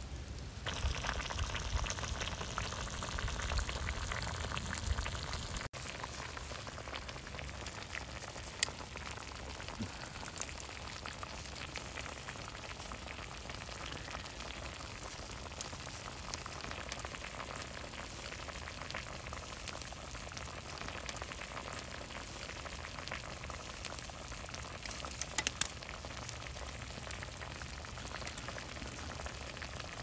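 Meat and vegetables sizzling in a small square skillet over a wood campfire, with scattered crackles and pops. The sizzle is louder for the first few seconds, then drops suddenly to a quieter steady hiss.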